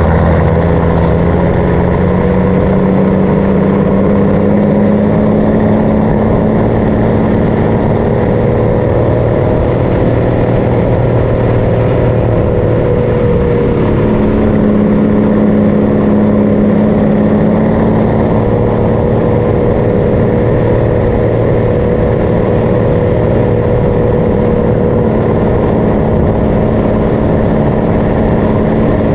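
MAN LE280B truck's diesel engine running under way. The engine note climbs over the first few seconds, changes pitch about fourteen seconds in, then holds steady.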